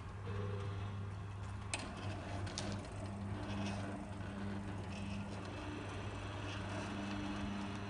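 Electric entrance-gate motor running with a steady low hum as the gate opens, with a couple of light clicks a couple of seconds in.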